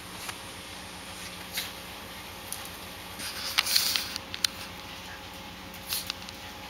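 Small pets scampering on a hardwood floor: scratchy skittering of claws with scattered light clicks, in a denser flurry about halfway through.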